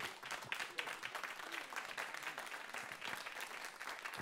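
Audience and performers applauding: many hands clapping in a dense, steady stream.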